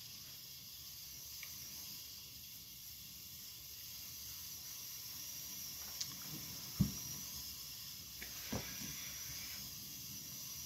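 Low steady hiss with a few soft knocks, the loudest about seven seconds in.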